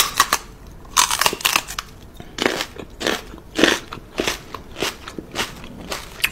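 A Chihuahua puppy licking and nibbling a person's ear close to the microphone: a run of short smacking, crackling mouth sounds, a little under two a second.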